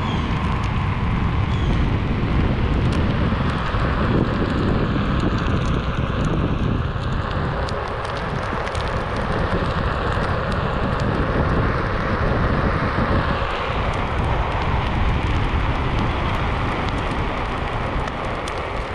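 Wind buffeting the microphone of a rider moving along on a Onewheel Pint electric board, a steady rushing rumble, with the noise of the board's wheel rolling over the path underneath.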